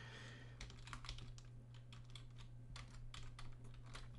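Typing on a computer keyboard: an irregular run of faint key clicks as an email address is entered, over a low steady hum.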